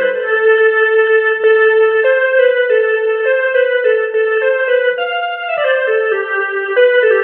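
A Rockster RS41IN mini electronic keyboard playing a single-line melody on one of its built-in piano-like tones, with notes changing a few times a second, as part of a tone demonstration.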